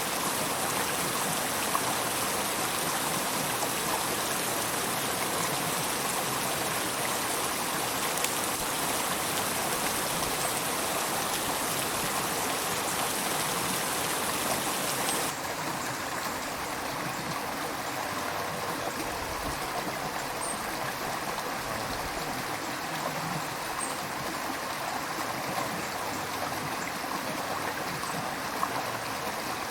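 River water flowing steadily over stones, a constant rushing with no pauses. About halfway through it suddenly turns a little quieter and duller, as at a cut between recordings.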